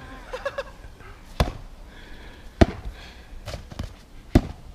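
Foam boffer swords striking a shield and each other in sparring: three sharp thwacks a second or more apart, with a lighter hit between the last two.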